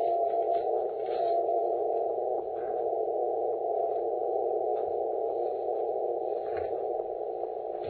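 Shortwave band noise from the FX-4 HF transceiver heard through its narrow CW filter: a steady hiss pinched into a narrow mid-pitched band. A faint Morse tone shows briefly at the very start.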